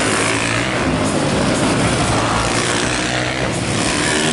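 Supermoto motorcycle engines racing around a track, several bikes at once, their pitch rising and falling as the riders accelerate and back off through the turns.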